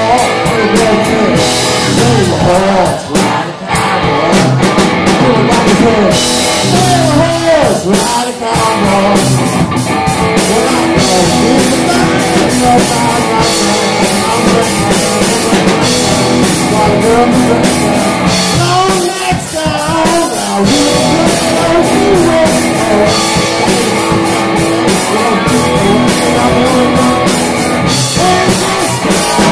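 Live rock band playing loud and steady: a man sings over electric guitar and a drum kit.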